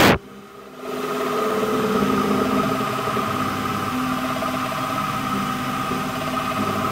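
WMD25 bench milling machine converted to CNC, running as its end mill cuts a pocket in a metal plate: a steady machine hum and whine with several held tones. The sound drops away sharply right at the start and comes back within about a second.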